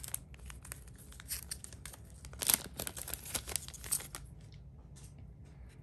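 Crinkly foil booster-pack wrapper crackling in short bursts as the opened pack is handled and the trading cards are slid out of it, with a louder cluster about two and a half seconds in.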